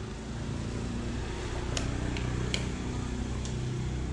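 A steady low mechanical hum, with a few sharp clicks around the middle.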